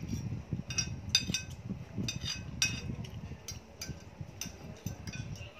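Spoons and dishes clinking at a meal table: short, sharp, irregular clinks, a couple a second, over a low background rumble.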